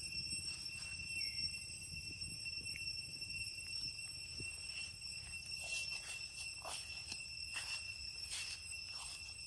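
Forest insects keeping up a steady high-pitched drone, with a scatter of sharp ticks or chirps joining in over the second half.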